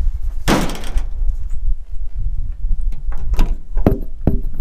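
Wind buffeting an action camera's microphone that has lost its windscreen, a steady low rumble, with footsteps crunching on gravel and a few sharp knocks and clunks near the end.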